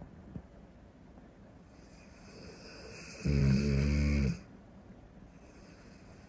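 Cane Corso dog snoring: one breath that builds over about a second and a half into a loud, low snore lasting about a second, a little past the middle.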